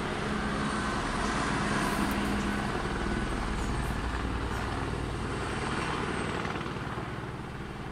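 Helicopter flying, a steady rotor beat with engine noise that grows fainter over the last couple of seconds.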